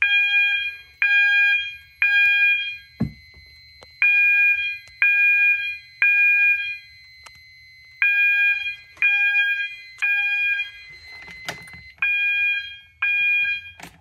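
System Sensor MASS horn strobe sounding an 800 Hz tone, pulsed by the fire alarm panel in the code-3 temporal pattern: three beeps a second apart, a pause, then again, signalling a fire alarm from a smoke detector. The last round stops after two beeps as the alarm is silenced.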